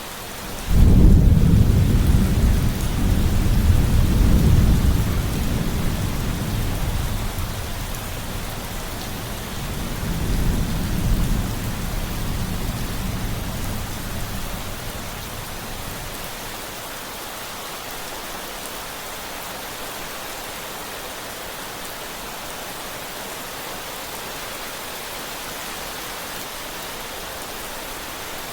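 Steady rain with a loud clap of thunder about a second in, rumbling low and slowly dying away, swelling once more about ten seconds in. After that only the rain continues.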